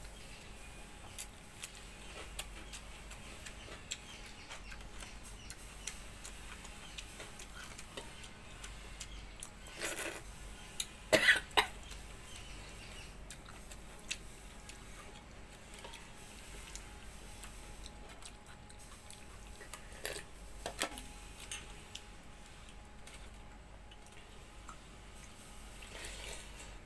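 A person eating rice by hand from a steel bowl: soft chewing and mouth sounds with many small ticks, and a few short, louder clicks about ten to twelve seconds in and again around twenty seconds in.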